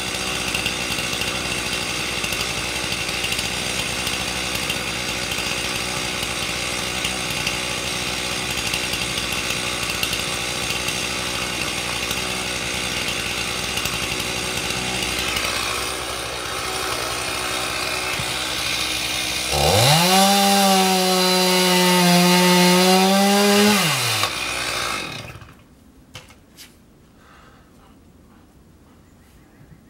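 Two-stroke chainsaw running steadily, then revved high for about four seconds. It drops back and cuts off about twenty-five seconds in, leaving only a few faint knocks.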